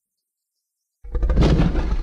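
Dead silence, then about a second in a loud, deep roar sound effect of a caveman starts abruptly.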